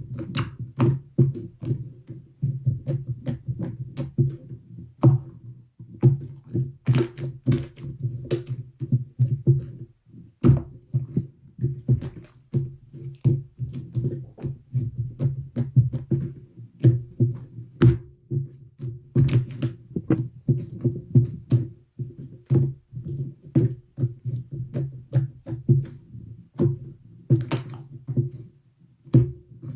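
Slime being squeezed and pressed by hand: a quick, irregular string of wet clicks and pops, several a second.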